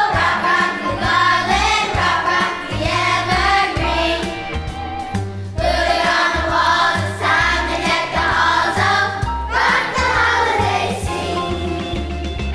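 A choir singing a seasonal song with instrumental accompaniment and a steady stepping bass line, pausing briefly about five and a half seconds in.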